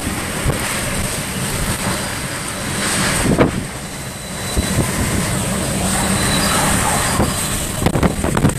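Hurricane-force wind from Hurricane Michael blowing hard, a loud steady rush with heavy buffeting on the microphone and a few knocks.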